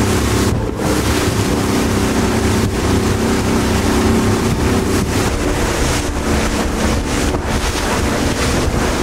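Outboard motor running steadily at cruising speed as a small aluminium boat travels over the sea, with water rushing and splashing off the hull and wind buffeting the microphone.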